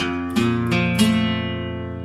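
Background music: acoustic guitar strumming chords, the last one about a second in left to ring.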